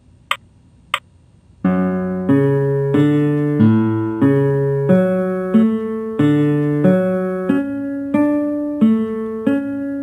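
A guitar scale-trainer program playing back a D major 7 arpeggio: two more count-in clicks at the tempo, then, about a second and a half in, a steady run of synthesized instrument notes, about three every two seconds (92 per minute). The notes jump up and down in pitch in a skip-and-flip pattern rather than running straight up.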